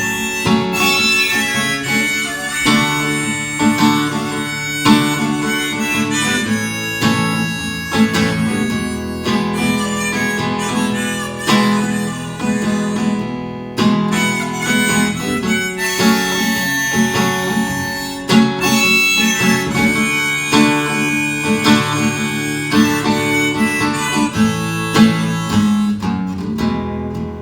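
Acoustic guitar strumming with a harmonica playing the melody over it: the instrumental intro of a folk song, played live.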